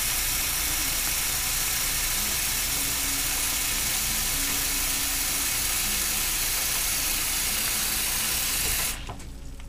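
Bathroom sink faucet running, a steady stream of water splashing into the basin and over hands. The flow stops suddenly near the end as the tap is shut off.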